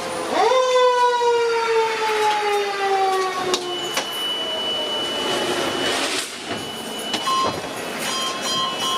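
Fire truck's Q mechanical siren given a short blip: it spins up sharply, then winds down slowly, falling in pitch for about three seconds. A steady high electronic tone follows, and near the end a repeated beeping.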